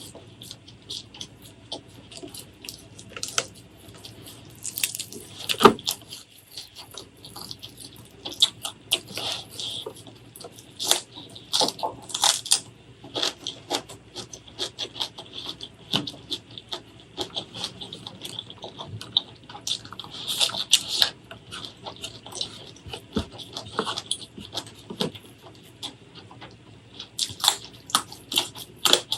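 Close-miked eating sounds: chewing with many irregular wet smacks and short crisp clicks from the mouth, on fried fish, spicy fish paste and fresh vegetables.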